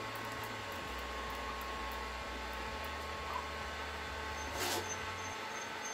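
A rubber hand roller pressed and rolled along a curved metal-edged stair nosing trim with a vinyl inlay, giving a faint low rolling sound over steady room hum, with a short brushing noise about four and a half seconds in.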